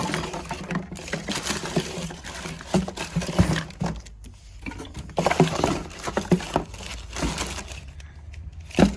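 Rummaging through a pile of car parts and their packaging: irregular rustling and crinkling, with light knocks and clinks of small metal parts.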